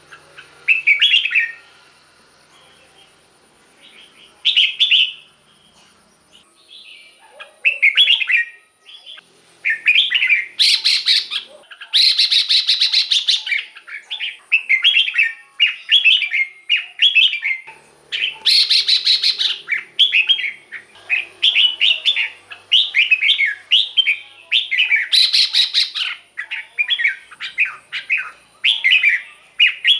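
Red-whiskered bulbul singing short warbled phrases, a few seconds apart at first and nearly continuous from about ten seconds in, mixed with several harsher, rasping notes.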